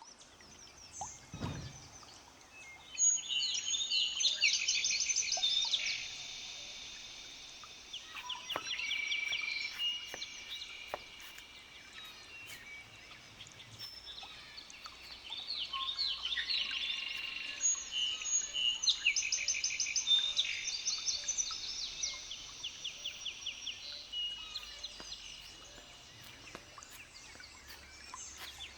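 Birds singing: bursts of rapid high trills and chirps, loudest twice with a quieter stretch between. A brief low thump comes about a second and a half in.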